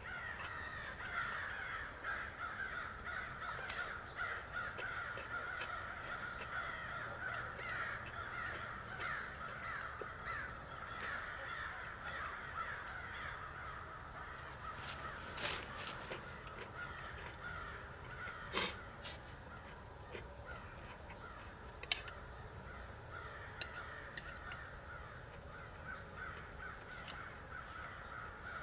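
A flock of crows cawing over and over, many overlapping calls at once. Now and then a fork clicks sharply against a metal pan.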